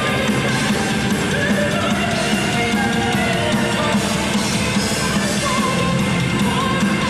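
Symphonic metal band playing live: distorted electric guitar, drum kit and keyboards in a dense, steady wall of sound, heard from within the crowd.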